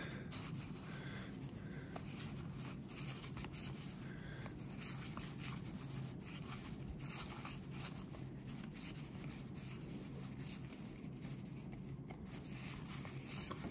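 Faint rustling and light clicks of cardboard trading cards, 1991 Donruss baseball cards, being slid past one another and flipped through in the hand, over a steady low room hum.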